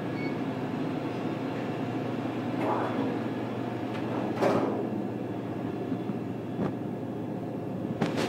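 Steady machine hum of a Screen PlateRite 8600S computer-to-plate platesetter while its lid is lifted and an offset printing plate is handled and laid onto the loading bed: a few knocks and rattles, the loudest about four and a half seconds in, and sharp clicks near the end.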